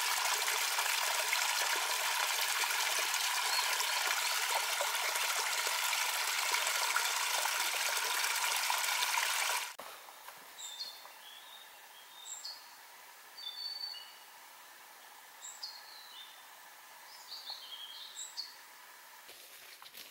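A small forest stream splashing over a little waterfall, a steady rush of water that cuts off suddenly about ten seconds in. After it, a songbird sings short, high whistled phrases, most notes falling in pitch.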